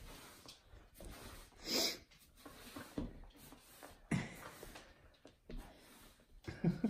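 A dog breathing through its nose while chewing a plush toy, with one short sharp puff of breath about two seconds in and softer low sounds later.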